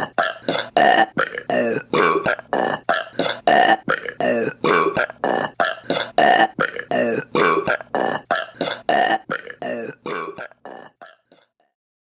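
A rapid string of short burps, about three a second and evenly spaced, fading out in the last couple of seconds.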